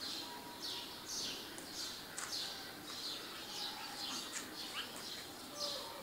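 Small birds chirping: a steady run of high, quick chirps that fall in pitch, about two a second, over a faint background chorus.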